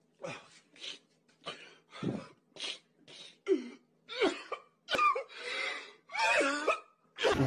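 A man sobbing: a string of short, gasping, breathy sobs, about a dozen, which turn into strained, wavering cries in the second half.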